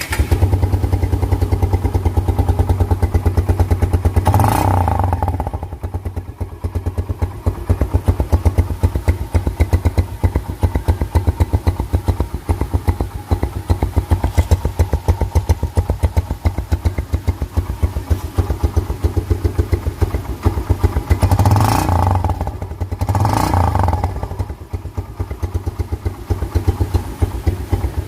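Suzuki Gixxer single-cylinder motorcycle engine idling through a modified aftermarket exhaust pipe, with a steady rapid popping beat. The throttle is blipped briefly about four seconds in and twice more near the end, the engine rising in pitch and dropping back to idle each time.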